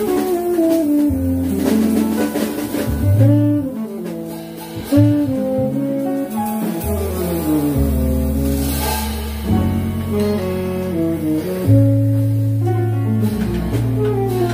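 Small jazz combo playing live: a saxophone line with long runs of rising and falling notes over upright bass, piano and a drum kit with cymbals.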